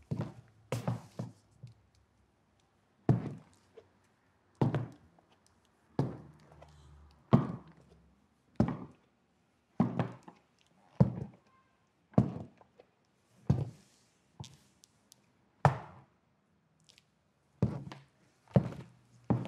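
Hard-soled dress shoes walking on a wooden floor: slow, evenly paced steps, each a sharp knock, about one every second and a half.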